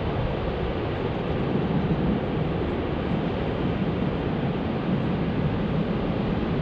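Steady, even noise of ocean surf breaking on a beach, mixed with wind.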